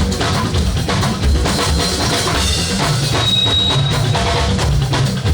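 Drum-heavy Yoruba praise music with a strong bass beat, an instrumental stretch between sung lines.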